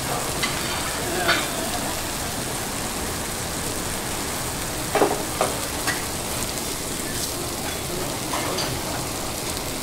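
Food sizzling on a teppanyaki iron griddle in a steady hiss, with a few sharp clinks of metal spatulas on the griddle, the loudest about halfway through.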